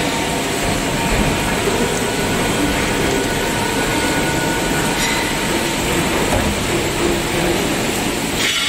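CNC gantry drilling machine's spindle drilling through thick steel plate: a loud, steady grinding noise of the bit cutting metal, with a faint steady whine over it.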